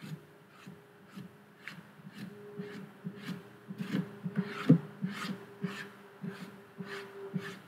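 A cotton bud and fingertips rubbing and pressing over the keypad of a SwissMicros DM42 calculator, smoothing down an adhesive C47 bezel overlay so its edges don't lift: a run of short, irregular rubbing strokes and soft taps on plastic.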